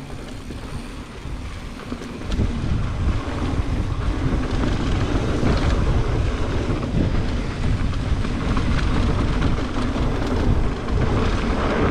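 Wind rushing over the microphone of a mountain bike descending a dry dirt trail, with the tyres rolling over the dirt. The rush grows louder about two seconds in as the bike picks up speed.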